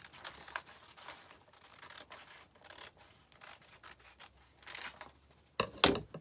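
Scissors snipping through a sheet of decoupage paper: a run of small, irregular cuts and paper rustles. Near the end comes a louder cluster of sharp knocks and rustles.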